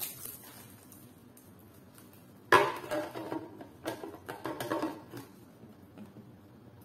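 Plastic blender lid knocking and clattering against the clear plastic jar as it is fitted on: one sharp knock about two and a half seconds in, then a run of smaller knocks and rattles over the next two seconds or so.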